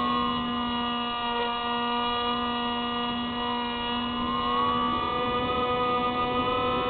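Electric motor and propeller of an FPV model aircraft whining steadily, heard through its onboard camera. The pitch sags slightly at the start and climbs again about five seconds in.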